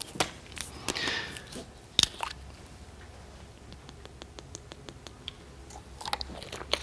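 Close mouth sounds of a man taking a drink: sips and swallows, with scattered small clicks and one sharp click about two seconds in.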